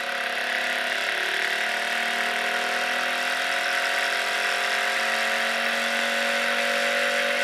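One-coil, one-magnet pulse DC motor running at high speed, a steady electrical whine with several fixed tones over a hiss. It grows slightly louder as the coil pulse duration is turned up.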